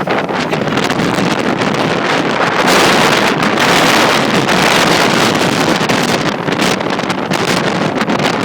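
Strong storm wind rushing and buffeting the microphone, gusting harder from about three seconds in for a couple of seconds.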